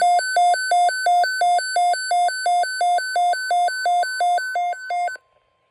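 Weather radio receiver's alert alarm sounding for a flood warning: two electronic tones alternating about three times a second, cutting off suddenly about five seconds in.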